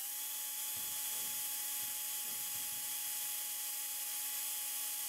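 Cordless DeWalt drill running at a steady speed, drilling a rivet hole through a metal hinge and a clear acrylic panel. The motor gives an even whine that holds one pitch throughout.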